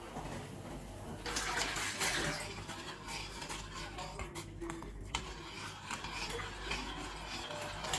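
Water poured into a cooking vessel for about a second, followed by light clinks and taps of kitchen utensils.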